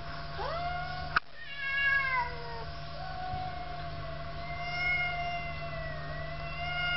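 Cat yowling in a threat standoff with another cat: long, drawn-out, wavering wails. A rising wail is cut by a sharp click about a second in, a falling wail follows, then a long sustained yowl.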